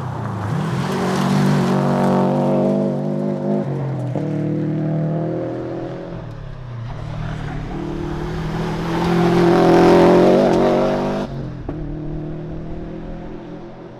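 Subaru WRX STI's turbocharged flat-four engine accelerating hard on a rally stage, revving up and shifting up through the gears, with shifts about four and six and a half seconds in. It then climbs to its loudest near ten seconds before the revs fall away suddenly.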